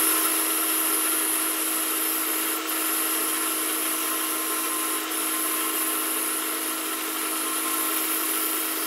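Band saw running steadily as a cherry board is fed on edge through the blade, a resaw cut: a steady hum under an even hiss.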